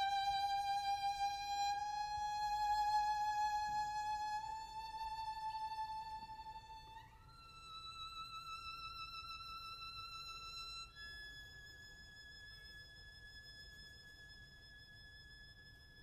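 Solo violin playing long, held high notes with vibrato. It slides up to a higher note about seven seconds in and steps up again about eleven seconds in, growing steadily quieter toward the close of the piece.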